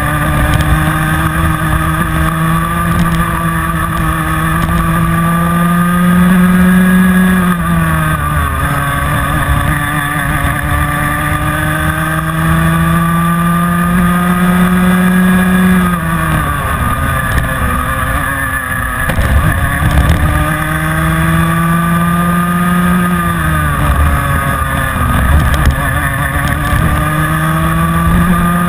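Rotax 125 Mini Max two-stroke kart engine heard onboard at racing speed. Its pitch climbs steadily as the kart accelerates along each straight, then drops sharply three times as the driver brakes and lifts for the corners, and it starts climbing again near the end.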